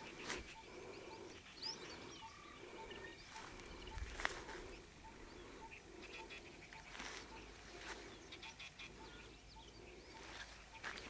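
Outdoor ambience: a bird repeats a single short note evenly, about three to four times a second, with some chirps above it. Footsteps on dry ground and a few sharp rustles and knocks come and go.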